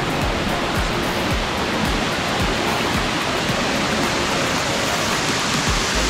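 Small waterfall cascading over rock ledges: a steady, loud rush of white water.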